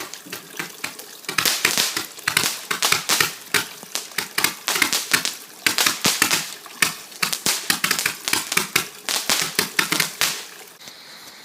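Bonfire crackling and popping: a dense run of irregular sharp snaps, several a second.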